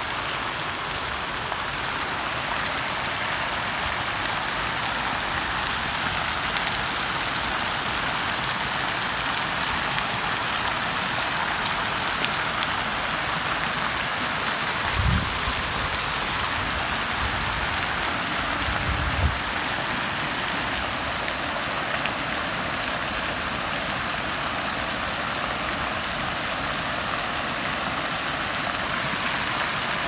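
Many water jets of a large public fountain falling and splashing into its basin: a steady hiss, with a few short low thumps about halfway through.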